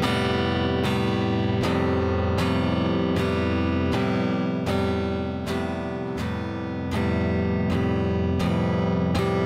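Clean electric guitar strumming the same chord about once every 0.8 s through a Boss CS-3 compressor pedal. Each hard strum is squashed down to an even level, and the chord sustains between strums.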